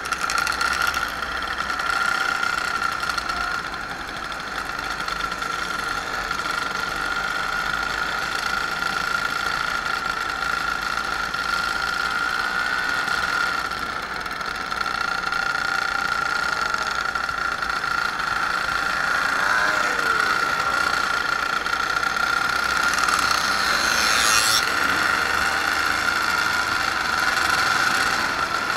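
Small moped engines running steadily, a constant high engine whine over the hum of many bikes riding together. About two-thirds of the way through, one engine note slides down in pitch, and a brief rising hiss follows soon after.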